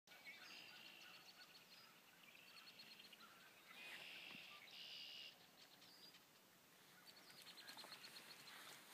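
Faint birdsong: several birds chirping and trilling, with a run of quick repeated notes near the end.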